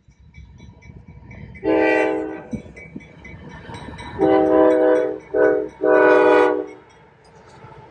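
CSX freight locomotive's air horn sounding the grade-crossing signal, long, long, short, long, as the train approaches the crossing. A low rumble of the approaching train runs underneath.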